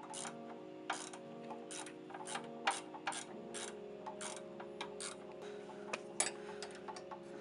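Ratcheting wrench clicking in short strokes, about two or three clicks a second at an uneven pace, as it turns a nut on a Honda Civic's front lower control arm. A song plays underneath.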